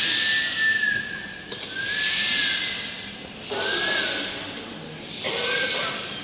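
A group of people making breathy air sounds with their mouths, hissing and blowing in four swells that rise and fade about every one and a half to two seconds, with thin whistle-like tones on top. The group is improvising to the signs of a soundpainting conductor.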